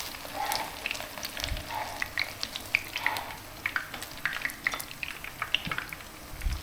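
Thick mắm kho (fermented fish-paste stew) simmering in a pot, with irregular bubbling pops and crackles.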